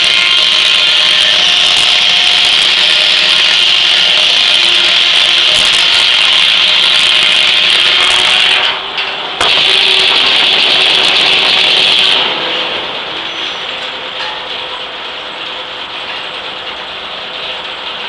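Large circular sawmill blade cutting lengthwise through an ash log with a loud, steady, high whine. The whine breaks off briefly about nine seconds in, then comes back until about twelve seconds in. After that the blade spins free, quieter, with the mill's carriage machinery running.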